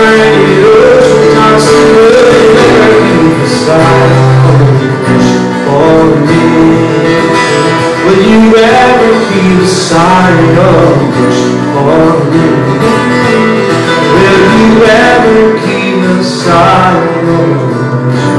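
Live band music with guitars, keyboard and fiddle, in a country/Celtic style, playing steadily at full volume.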